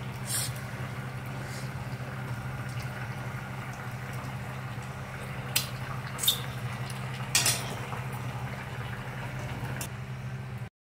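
Thick taro curry bubbling in a pot on a stove, with a few short sharp pops from bursting bubbles over a steady low hum. The sound cuts off abruptly just before the end.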